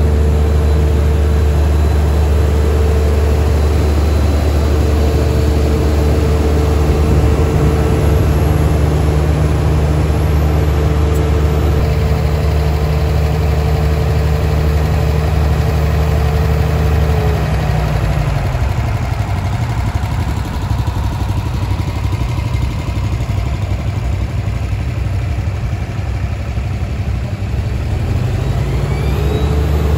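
Ditch Witch AT32 directional drill's engine running steadily with a low hum. About two-thirds of the way through, the hum drops away, leaving a rougher machinery noise, and it comes back near the end.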